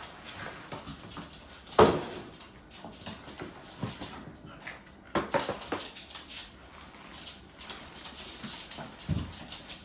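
Unboxing sounds from a robot vacuum and its packaging being handled: rustling and small clicks, sharp knocks about two and five seconds in, the first the loudest, and a duller thump near the end. A dog's small sounds come through as well.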